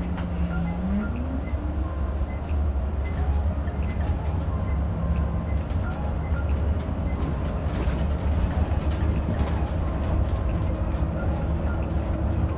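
Scania OmniLink city bus heard from inside the cabin while driving: a steady low engine and drivetrain drone, with a tone that rises in pitch about a second in as the bus picks up speed.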